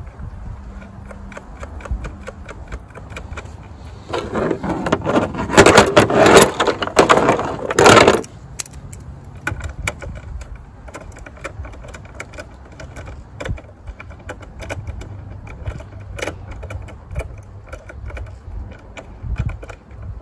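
Metal hand tools and battery hardware clinking, scraping and rattling during a car battery replacement. About four seconds in comes a loud, dense stretch of rattling lasting some four seconds, followed by scattered clicks.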